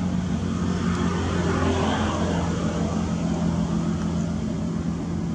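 A steady low engine hum, swelling slightly about two seconds in.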